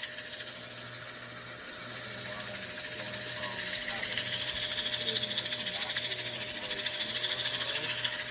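Abrasive on a tennis ball rubbing the inside of a maple bowl spinning on a Grizzly wood lathe: a steady sanding hiss over the steady hum of the lathe motor.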